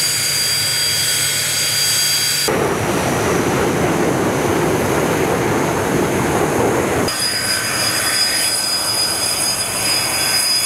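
Su-25 attack aircraft's twin turbojet engines running on the ground: a steady high whine over a jet rush. About two and a half seconds in the sound changes abruptly to a lower, broader rush, and the high whine returns about seven seconds in.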